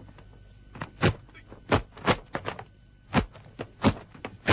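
A martial-arts routine being performed: a quick run of about ten sharp hits and whooshes, unevenly spaced, from moves, strikes and stamps.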